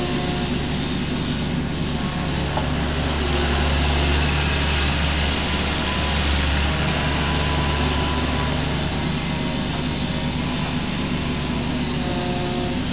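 Kubota KX61-3 mini excavator's diesel engine and hydraulics working as it digs a trench and slews to dump the spoil: a steady low drone that swells louder for a few seconds in the middle.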